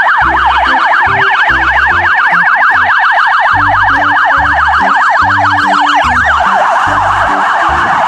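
Police car siren sounding in a fast yelp, its pitch sweeping up and down several times a second. About six seconds in it switches to a harsher, rougher tone.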